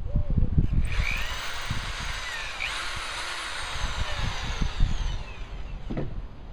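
Power drill with a 5/32-inch bit boring through an extendable pole's end fitting and the hook shank inside it, running from about a second in until it stops near the end, with a high whine that shifts in pitch as the bit cuts. A few low knocks come before it as the drill is set against the pole.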